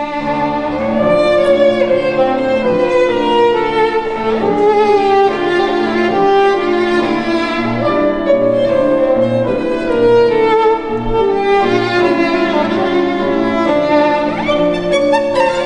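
Violin and grand piano playing classical music together: the violin carries a held, singing melody with a slight waver on its notes over the piano's accompaniment.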